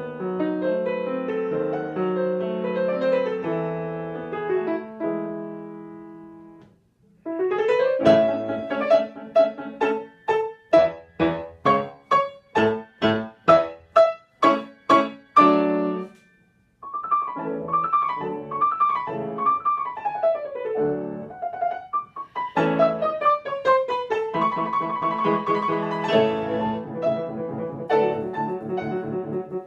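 Two grand pianos played together as a duo. A flowing passage fades away, then after a short pause comes a run of loud repeated chords, about two a second, followed by rippling falling figures and a fuller passage near the end.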